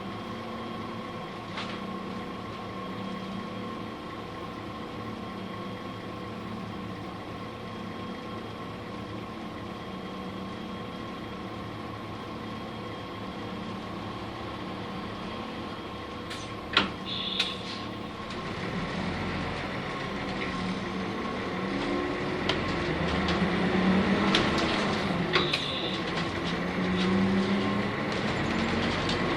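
Nissan Diesel UA city bus with a PU6 natural-gas engine, heard from inside the cabin: a steady low running hum at first, then two sharp clicks about 17 seconds in. After that the engine grows louder and its note rises as the bus pulls away, drops with a gear change, and climbs again.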